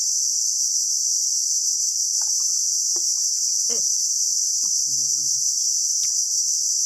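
Steady, loud, high-pitched insect chorus from the mangrove forest, with a few faint taps underneath.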